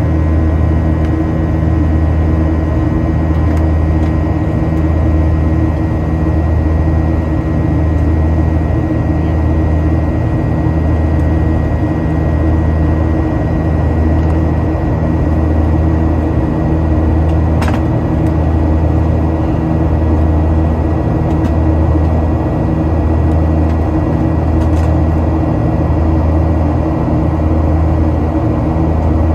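Boeing 737-900ER's CFM56-7B turbofan engines at climb power, heard inside the cabin: a steady, loud drone with a low hum that swells and fades about once a second and a thin steady whine above it.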